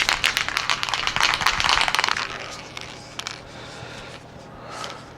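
Aerosol spray-paint can being shaken hard, its mixing ball rattling in rapid clicks that stop about two seconds in. After that it is much quieter, with a couple of faint clicks.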